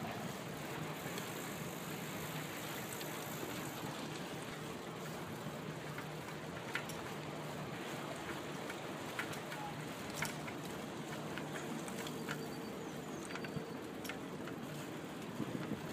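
Steady noise of a bicycle rolling over a brick street, with a few sharp clicks and rattles from the bike and a faint low hum under it.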